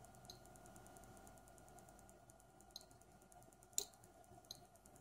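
Near silence with four faint, sharp computer clicks, the loudest a little before four seconds in, over a faint steady hum.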